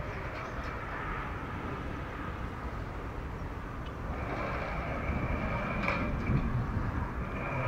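Distant jet engines of a Boeing 737-800 (CFM56-7B turbofans) on the takeoff roll: a steady rushing noise that grows a little louder, with a steady whine coming in about four seconds in.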